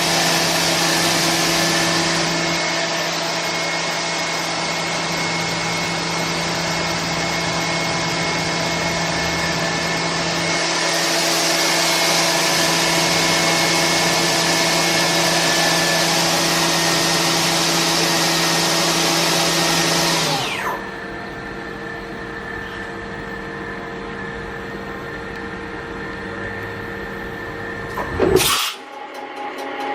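FANUC Robodrill Alpha T14iD CNC drill-tap machining center running: a loud steady hiss with a hum of several steady tones. About two-thirds of the way through it winds down sharply, leaving a quieter hum. Two short loud bursts come near the end.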